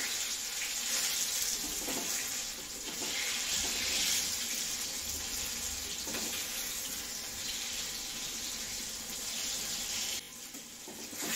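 Besan-coated brinjal slices frying in hot mustard oil in a kadai, a steady sizzling hiss with a few knocks of a spatula in the pan. The sizzle dips briefly near the end.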